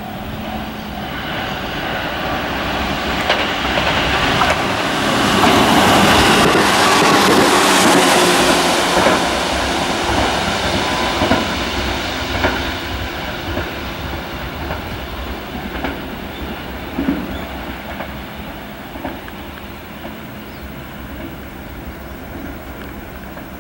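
Tobu 6050 series two-car electric train passing on the rails: its running sound swells to a peak about six to nine seconds in, then fades as it moves away, with wheel clicks over rail joints and points along the way.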